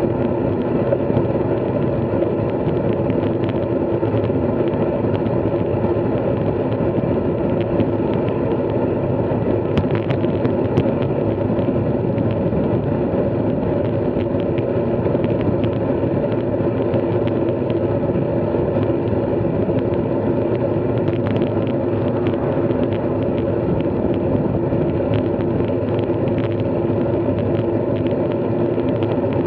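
Steady noise of a moving ride recorded on the vehicle: an even rush of wind and road noise with a constant drone, and a few light clicks about ten seconds in.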